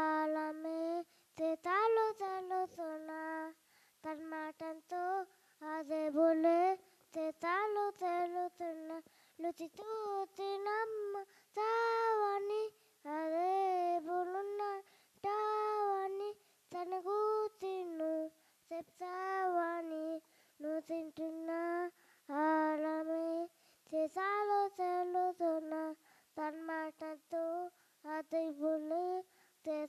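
A young child singing unaccompanied into a microphone. The song comes in short phrases of held, wavering notes, with brief silences between them.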